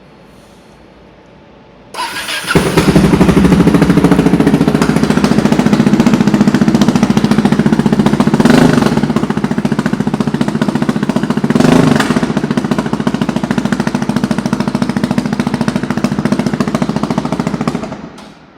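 Yamaha XT600Z Ténéré single-cylinder four-stroke engine, breathing through a LeoVince X3 aftermarket silencer, starting about two seconds in and running with an even, loud thump, with two brief rises in revs in the middle, then cut off near the end.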